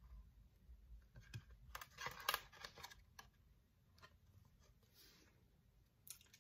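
Faint clicks and rustles of a stiff cardboard board book being handled as its pages are turned, bunched around two seconds in.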